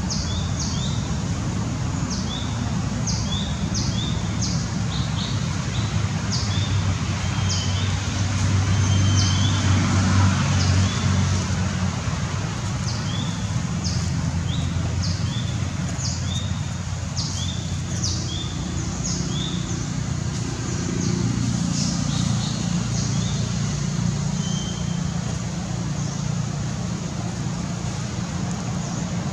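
Outdoor ambience: a steady low engine-like rumble, swelling briefly about eight to eleven seconds in, under many short high chirps repeating throughout.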